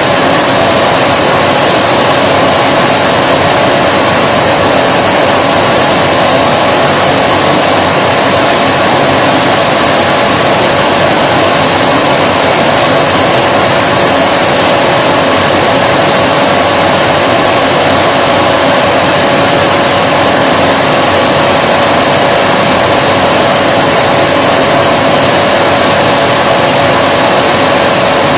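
Vacuum cleaner motor running steadily, a loud even whoosh of air with a constant mid-pitched whine.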